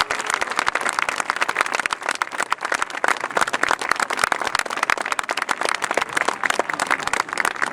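Crowd applauding with dense, steady clapping that eases off at the very end.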